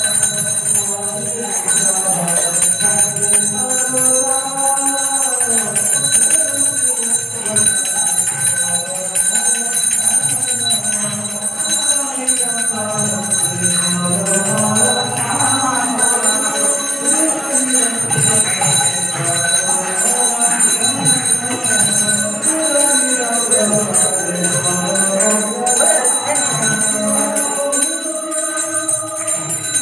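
Devotional chanting or kirtan, a voice gliding slowly through a melody, over a handbell rung continuously as for temple arati.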